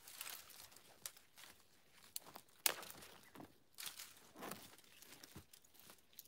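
Dry twigs and brush snapping and crackling as branches are stamped on and broken by hand, with boots crunching in light snow. The sounds come as scattered sharp cracks, the loudest about two and a half seconds in.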